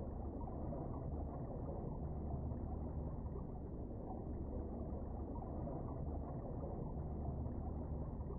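Steady, muffled underwater rumble and hiss picked up by a camera submerged under lake ice, with nothing above the middle range and no distinct events.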